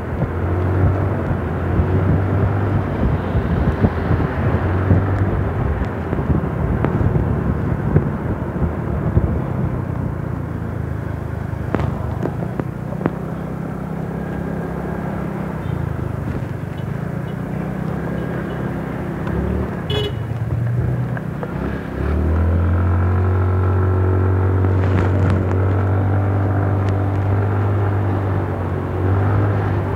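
Motorcycle engine running under way in traffic, with wind and road noise. About two-thirds of the way in, the engine note rises and gets louder as it accelerates.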